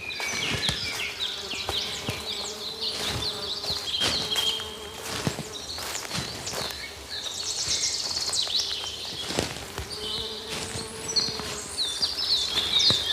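Forest ambience: many small birds chirping and a steady insect buzz, with footsteps crunching on leaf litter every second or so.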